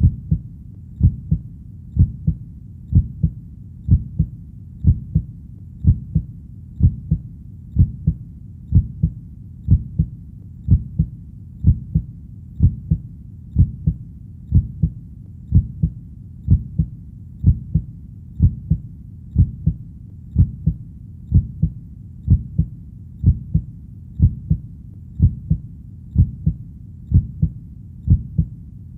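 Heartbeat: a steady lub-dub double thump, low and dull, repeating about once a second.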